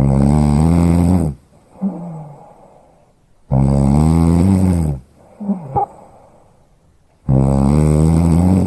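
Loud snoring: three long, pitched snores about every three and a half seconds, with quieter breaths between them.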